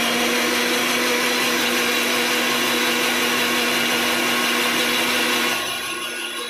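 Electric mixer grinder running at full speed, blending watermelon juice in its jar with a steady motor whine and churning hiss. The sound eases slightly about five and a half seconds in.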